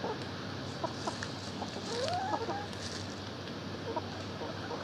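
A flock of hens clucking, with short calls scattered through and a longer rising call about two seconds in.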